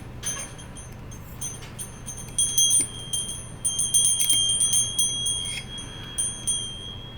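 Small magnets and metal parts of a magnetic fidget toy clicking and snapping together as the magnets are fitted, with irregular sharp clicks and a bright metallic ring that lingers after them.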